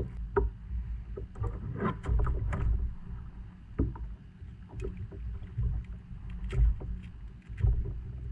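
Scattered knocks and clicks of a Spanish mackerel being handled and unhooked on a kayak deck, over a steady low rumble of choppy water against the kayak hull.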